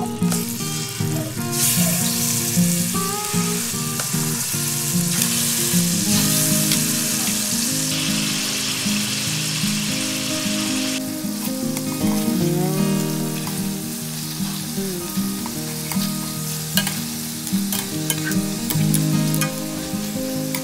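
Chicken pieces sizzling in hot oil in a stainless steel pan. The sizzle is loudest from about a second and a half in until about eleven seconds, while the pan fills with pieces, then eases off. After that come sharp clicks of metal tongs turning the pieces against the pan. Background music plays underneath.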